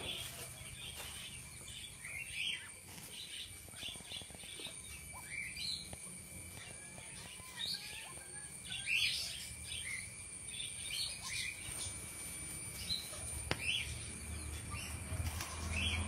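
Birds chirping in short, sliding calls every second or so, over a faint steady high tone, with a low rumble coming up near the end.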